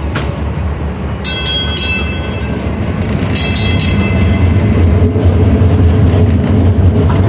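Streetcar's bell rung in two quick clusters of strokes, about a second and again about three and a half seconds in, as the car starts from a stop. Under it runs the streetcar's low rumble of motors and steel wheels on rail, growing louder as it pulls away.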